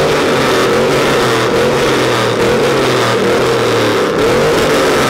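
Lifted truck's engine and exhaust running loud with a steady drone as it rolls slowly past.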